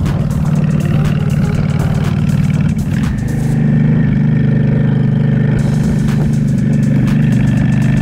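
Honda Shadow VLX's V-twin engine, breathing through open velocity stacks, running under way on the road. About three seconds in its note shifts and it runs a little louder and steadier.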